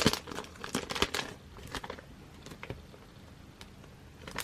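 Plastic wrapping crinkling as it is pulled off an album, a dense run of crackles for about the first second and a half, then only a few faint clicks.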